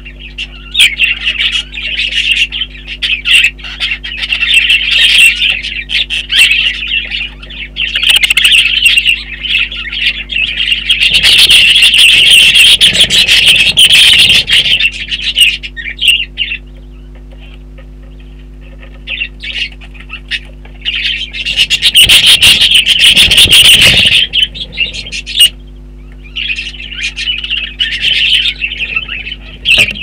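Budgerigars chattering and warbling in long, fast runs: a male budgie's courtship chatter. The chatter grows louder and harsher twice, about eleven to fifteen seconds in and again about twenty-two to twenty-four seconds in, with a few short quiet gaps.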